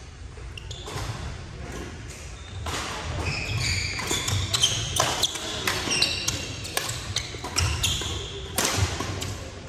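Badminton rally: sharp racket hits on the shuttlecock, with sneakers squeaking on the hardwood gym floor. Both get busier from about three seconds in.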